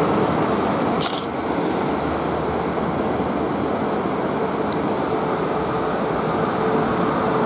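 Steady running rumble of a Class 450 electric multiple unit on the track, with a faint steady hum coming in about halfway through and a small click about a second in.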